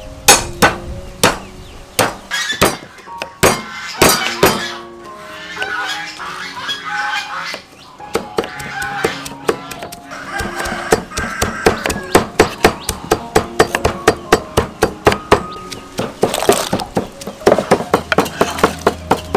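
Cleaver and knife chopping on a wooden chopping block. A few heavy, irregular strokes come first, then from about halfway there is rapid, even chopping at three to four strokes a second, as for mincing. Background music plays throughout.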